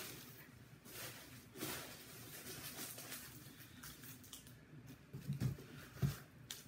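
Faint rustling and handling of packing paper in a cardboard box as an item is lifted out, with a couple of soft low knocks near the end.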